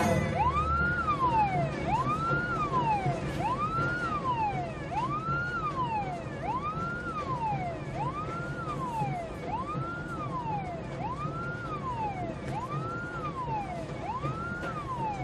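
Emergency vehicle siren wailing: a quick rise and slower fall in pitch, repeating about every second and a half, growing slightly fainter.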